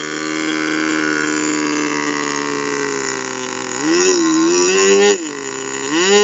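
Small AP Hornet .15 glow engine with a 7x4 propeller running steadily on a model plane, then opened up twice: the pitch jumps up about four seconds in, falls back a second later, and climbs again near the end.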